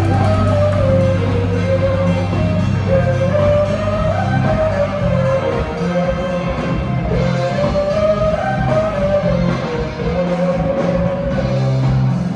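Rock-style music with guitar, a wandering melody line and a steady bass line underneath.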